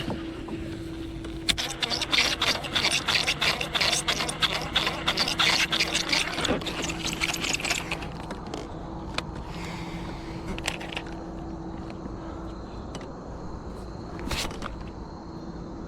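Fishing reel cranked fast, its gears grinding and scraping with a rapid rasping rhythm for about six seconds, then easing to slower, fainter cranking. The grind comes from a worn, squeaky reel.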